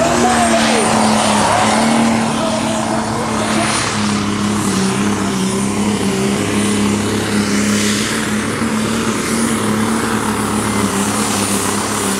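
Turbocharged diesel engine of a Pro Stock pulling tractor running hard during a pull, a steady deep engine note with a high, steady turbo whistle over it.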